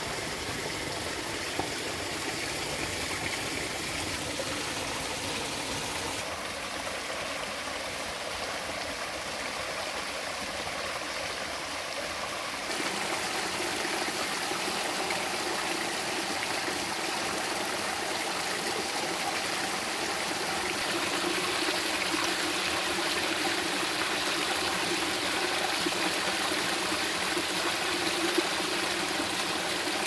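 Mountain stream water running and trickling over rocks in a steady rush. It grows louder partway through as water splashes down over the stones in a small cascade.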